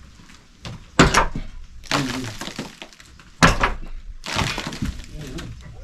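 Two sharp cracking impacts about two and a half seconds apart, each followed by about a second of noisy clatter.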